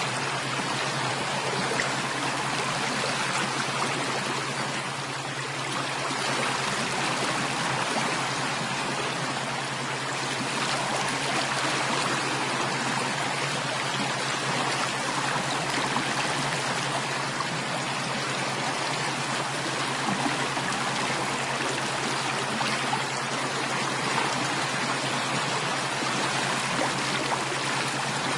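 Running water: a continuous, even rush like a flowing stream, steady throughout.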